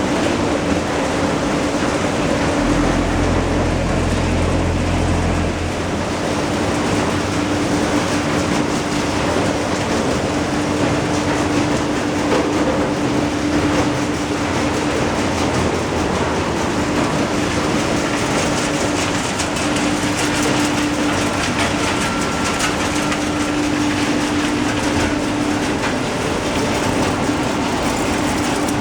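A vehicle running steadily: an even rushing noise with a constant low hum, and a deeper rumble from about three to six seconds in.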